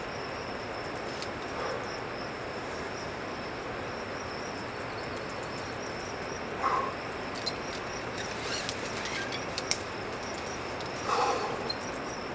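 Insects trilling steadily at a high pitch over outdoor ambient hiss, with a few brief short sounds and sharp clicks.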